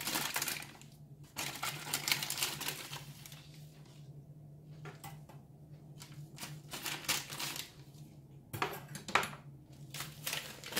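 Teaspoon and paper sachet of baking powder handled over a mixing bowl: irregular light clicks and taps of the spoon, with crinkling of the packet.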